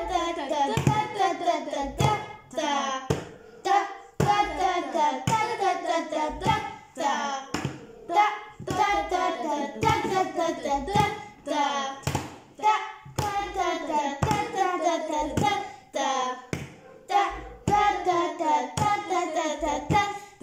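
Voices chanting rhythm syllables ("ta", "ti-ti") in a sing-song voice while hands beat a steady pulse of sharp knocks: a rhythm-reading exercise from cards.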